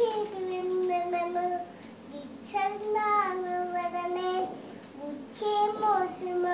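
A young girl singing alone, without accompaniment, in three long phrases with held notes.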